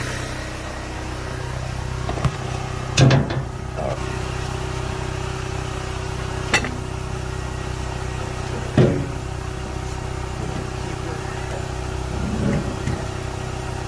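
An engine runs steadily throughout, broken by a few sharp metal clanks: the loudest is about three seconds in, with others near the middle and a softer rattle near the end.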